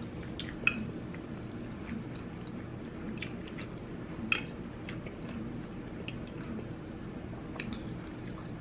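Close-miked chewing, with scattered small wet mouth clicks and a few sharper clicks, over a steady low hum.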